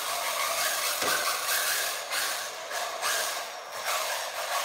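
Brushless RC drift car driving, its electric motor and drivetrain whirring and rising and falling in loudness with the throttle.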